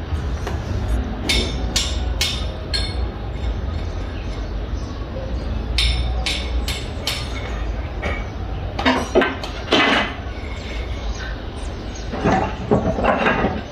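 Hammer driving nails on a building site: two runs of four sharp blows about half a second apart, then more clattering knocks later, over a steady low rumble.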